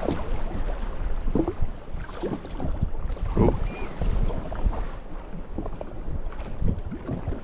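Water slapping and lapping against the hull of a drifting jet ski in choppy water, in irregular splashes, with wind buffeting the microphone.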